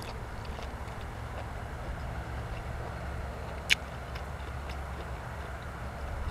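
A person chewing food close to the microphone: scattered soft, wet clicking mouth sounds, with one sharper click nearly four seconds in, over a low steady rumble.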